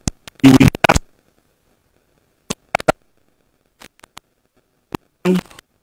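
A man's voice speaking a few words into a microphone, then pausing; the silent gap is broken by a few short, faint clicks before he speaks again near the end.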